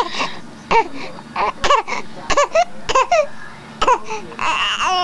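A young girl crying and fussing in short, repeated vocal bursts, one or two a second, with a longer, breathier cry near the end; she is upset at having the hiccups.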